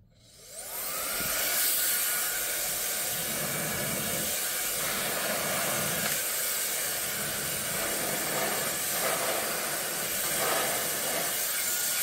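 Conair InfinitiPRO DigitalAIRE hair dryer with a concentrator nozzle fitted, switched on: its motor whine rises in pitch as it spins up over the first second or so, then it blows with a steady rush of air.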